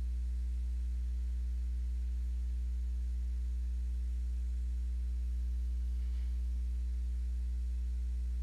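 Steady low electrical mains hum on the recording, with no other sound over it.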